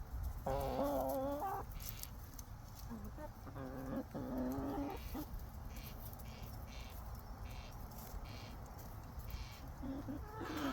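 Hens giving soft, drawn-out wavering calls: a long one about half a second in, another a few seconds later and a shorter one near the end. Light ticks in between are typical of pecking at the ground.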